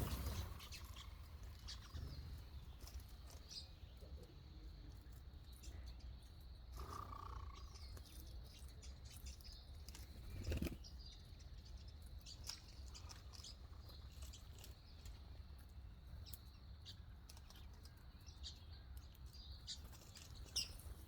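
Small birds chirping: short, scattered high calls throughout over a faint low rumble, with a louder call about seven seconds in and a thump about ten seconds in.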